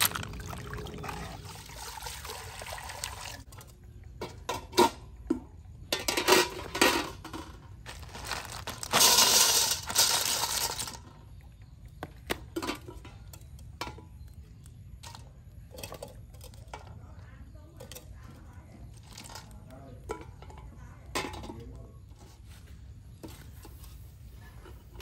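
Water pouring and splashing, with scattered clinks of hard items against a pot or dish. The loudest pours come about six and nine seconds in.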